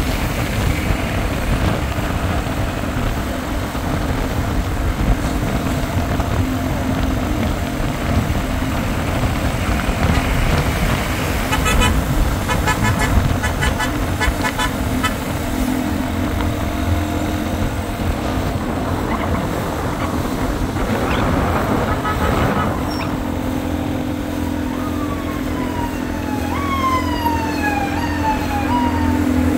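Car engine and road noise while driving through city traffic, with a few seconds of rapid rattling about twelve seconds in. Near the end, a falling whistle-like tone repeats several times in quick succession.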